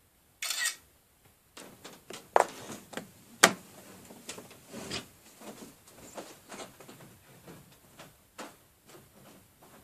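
A brief scrape, then a run of sharp clicks and knocks, the loudest about two and a half and three and a half seconds in, thinning into lighter taps: small metal engine parts being handled and set down on an OSB workbench board.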